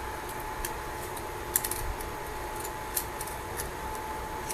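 Light scattered clicks and taps of a SIM card and a phone's open card slot being handled by hand, over a faint steady high hum.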